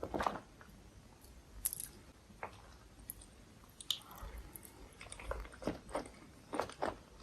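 Close-miked chewing of creamy Alfredo pasta: wet, squishy mouth sounds and small smacks that come and go, busiest just at the start and again in the last couple of seconds.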